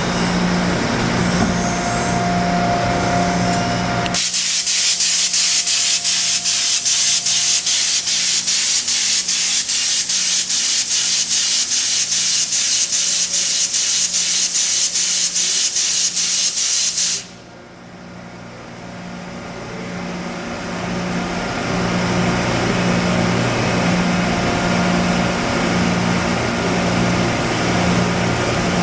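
CNC lathe running with a steady hum. About four seconds in, a loud hiss of high-pressure coolant spray starts suddenly, and it cuts off abruptly about thirteen seconds later. The machine's hum then slowly builds again.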